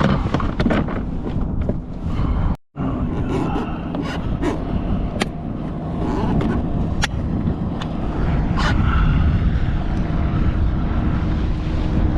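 Steady low wind rumble on the microphone with scattered sharp clicks, cutting out for an instant a little over two and a half seconds in.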